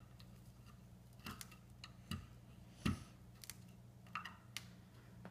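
Faint scattered clicks and taps from children's fingers picking and pressing at a crumbly block on a metal baking sheet, with one duller thump about three seconds in. A steady low hum runs underneath.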